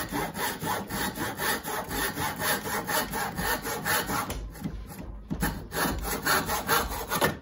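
Spear & Jackson back saw crosscutting a thin wooden strip by hand, in fast, even strokes. There is a short break about five seconds in, and the sawing stops suddenly near the end.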